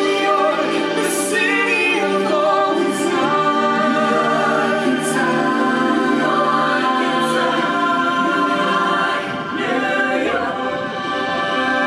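Stage-show music with a choir of voices singing held notes, and a bright cymbal-like stroke about every two seconds.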